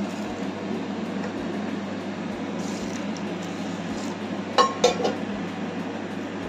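Water poured from a steel vessel into a ceramic bowl of sago pearls being washed, with two sharp clinks of metal against the bowl about four and a half seconds in.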